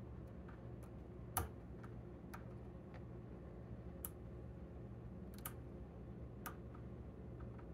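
Metal lock pick working the pins of a lock cylinder under tension: scattered faint clicks at an irregular pace, with one louder click about one and a half seconds in.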